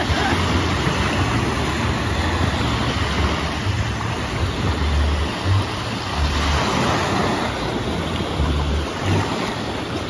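Steady rush of sea water, with wind gusts buffeting the microphone in uneven low rumbles.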